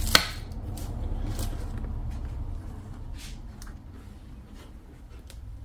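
Handling noise: a sharp tap just after the start, then light scattered rustles and ticks as a plastic bag is put down and a motorcycle helmet is lifted and turned in the hands. A steady low hum runs underneath.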